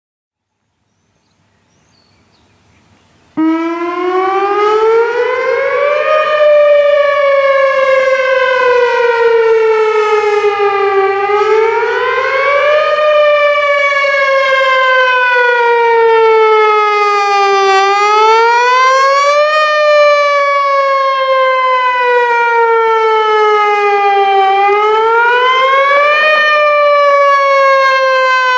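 Whelen Vortex R4 outdoor tornado warning siren sounding the attack (wail) signal. It starts suddenly about three seconds in and winds up in pitch. It then wails with a slow fall and a quicker rise in pitch, repeating about every six to seven seconds.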